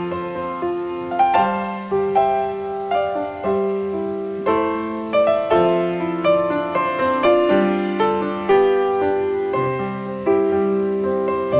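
Background piano music: struck notes and chords in a flowing melody.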